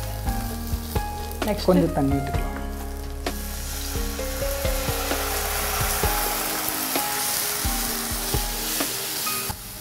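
Ground spice masala frying in a non-stick kadai, a spatula scraping and stirring through it. About three seconds in, water is poured into the hot pan and a loud steady sizzle starts, lasting until just before the end.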